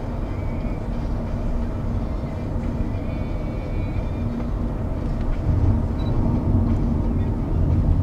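Steady low rumble of a moving public-transport vehicle heard from inside, with a faint high whine; the rumble grows louder about halfway through as it picks up speed.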